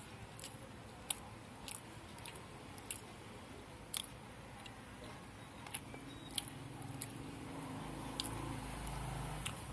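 Close-miked chewing: a person eating with her hand, with sharp wet mouth clicks and smacks coming roughly every half second to second. A low hum rises in the second half.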